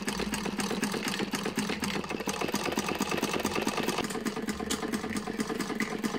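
Cast iron Hexagon hand-crank sewing machine, built between 1916 and 1924, being cranked by hand and running: a rapid, even mechanical clatter of many strokes a second from the needle bar and works.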